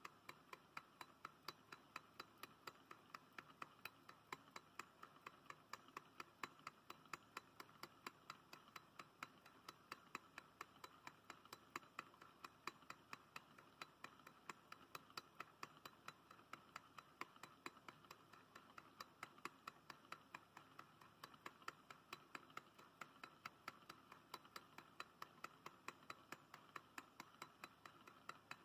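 Low-temperature-differential Stirling engine running, ticking steadily about five times a second.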